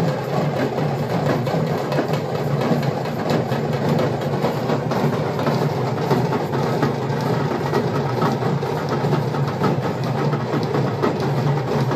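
Loud, steady street-procession din: a dense wash of rapid clattering over a low hum, with no clear voice or tune.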